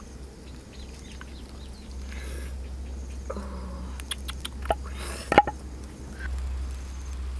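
Wooden mortar and pestle being handled as chili sauce is tipped out into a coconut-shell bowl: a few sharp wooden knocks, the loudest about five seconds in, over a low steady rumble.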